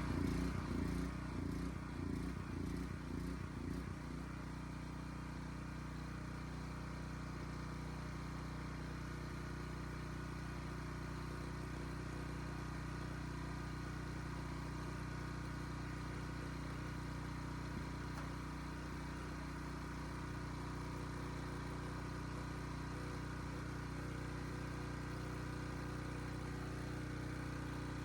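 Small portable generator engine running just after being pull-started, its clogged carburetor jet freshly cleaned. It runs unevenly and a little louder for the first few seconds, then settles into a steady run.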